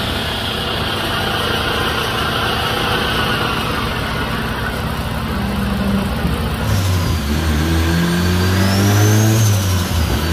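Turbocharged Lancer's 4G15 MIVEC four-cylinder engine running steadily, then from about two-thirds of the way in accelerating hard, its pitch climbing, with a high whistle rising and falling above it. Near the end the engine note dips briefly and climbs again.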